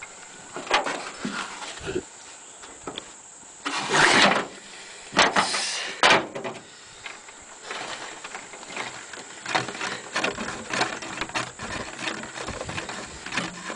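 Handling noise as string is tied to a metal magnet on the truck's metal side rail: rustling and scraping, with small clicks and knocks. There are loud rushing noises about four seconds in and again between five and six seconds.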